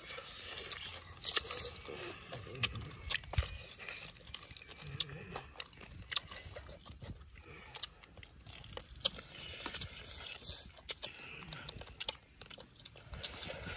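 Close-up crunching and chewing as two people eat crispy deep-fried chicken feet by hand, with many sharp crunches scattered irregularly through the eating.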